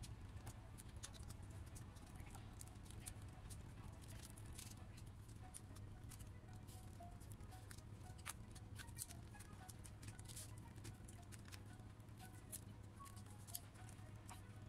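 Faint, irregular clicks and light taps of a small screwdriver and metal and plastic parts being handled inside an opened laptop, over a low steady hum.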